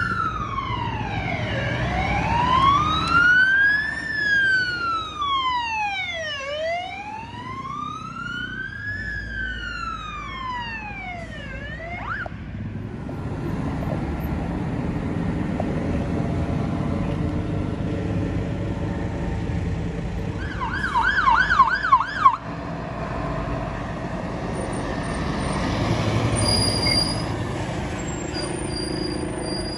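Emergency vehicle siren on a slow wail, rising and falling about every five seconds, which cuts off about twelve seconds in. Then the rumble of fire engines driving past, with a short burst of fast yelp siren about twenty-one seconds in.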